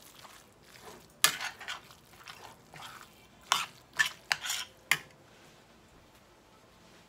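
A spoon stirring and scraping through ground meat and chopped vegetables in a stainless steel skillet, clinking sharply against the pan several times, once about a second in and four times between about three and a half and five seconds in.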